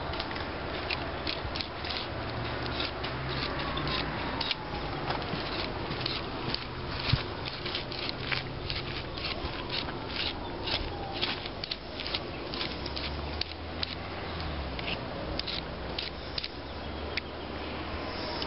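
Knife blade of a Leatherman multi-tool scraping and cutting the prickly leaves off a fresh thistle stalk: short, crisp scrapes and snaps, a few a second, at an uneven pace.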